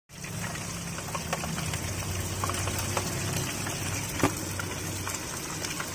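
Chicken proventriculus deep-frying in a pot of hot oil: a steady, crackling sizzle of bubbling oil over a low, even hum, with a few light clicks and a sharper one about four seconds in.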